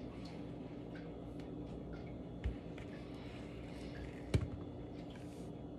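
Quiet kitchen handling sounds: faint clicks and two short knocks, about two and a half and four and a half seconds in, as cheese and hot dogs are cut and handled on a cutting board, over a steady low room hum.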